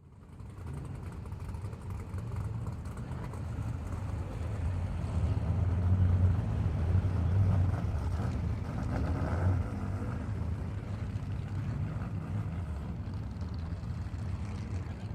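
Car engine running with a low, steady rumble that starts abruptly, grows louder to a peak about halfway through, then settles to a slightly lower, even level.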